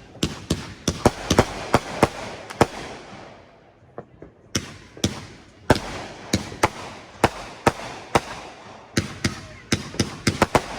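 Fireworks going off: rapid strings of sharp cracks and bangs, dozens in all, with a brief lull about four seconds in before the crackling picks up again.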